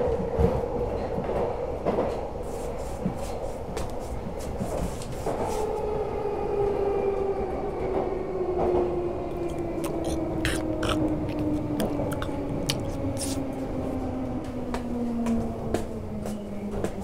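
Subway train running, with clicking wheels over the rails; from about five seconds in a whine falls steadily in pitch as the train slows to a stop.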